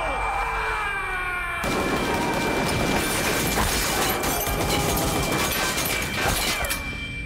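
A man's anguished yell, falling in pitch. About a second and a half in it gives way to a long spell of rapid automatic gunfire mixed with crashing impacts, which lasts about five seconds before stopping.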